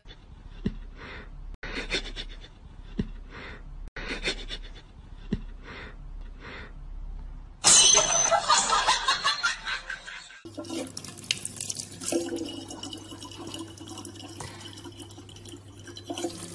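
A thin stream of tap water runs into a plastic bottle over a steady low hum, filling the last six seconds. Before it comes a loud, harsh noisy burst of about three seconds, and before that only faint soft taps.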